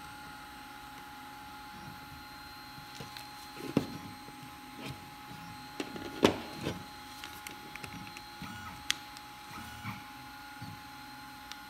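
Plastic clicks and knocks from a 3D printing pen's housing being handled and pressed back together. The sharpest click comes a little past the middle, with a few smaller taps and knocks before and after it.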